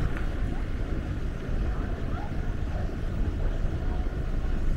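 Steady low rumble of city street noise: traffic with wind buffeting the microphone.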